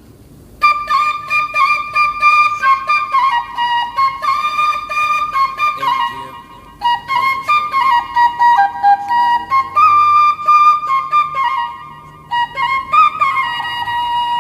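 Background music: a solo flute melody, played in phrases of sliding and held notes with brief pauses between them.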